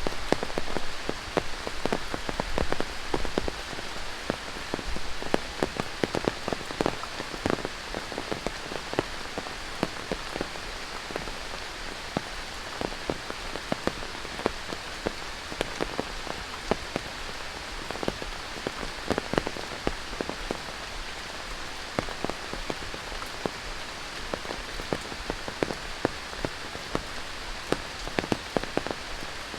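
Heavy tropical rain falling in rainforest: a steady hiss with many separate drops striking close by, the strikes loudest in the first several seconds.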